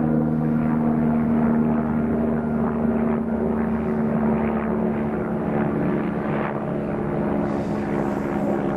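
Kanto Railway diesel railcar running past, its diesel engine making a steady drone with irregular rumbling wheel noise over it.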